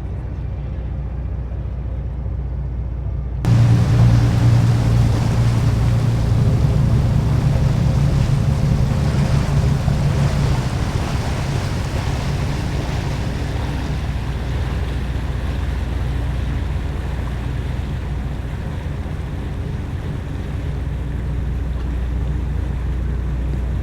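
A boat's engine running with a steady low hum, along with a hiss of wind and water. About three seconds in the sound suddenly gets louder and fuller.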